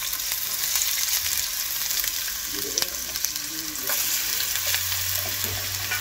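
Sliced bitter melon (carailli) sizzling in hot oil in a stainless steel pot as handfuls of slices are dropped in, with a steady frying hiss and a few light clicks.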